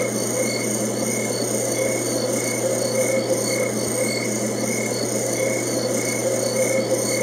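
Ambient sleep-sound track: a steady hiss over a low drone, with a soft chirp repeating roughly every half second.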